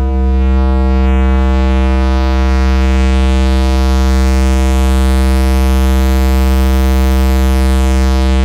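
Sustained synthesizer drone from the projection show's sound design: a deep bass note with many overtones, held loud and steady, while a bright sweep high up rises slowly and falls away near the end.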